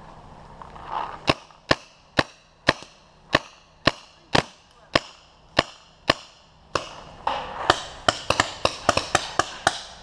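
Paintball marker firing single shots about twice a second, then a quicker string of shots near the end.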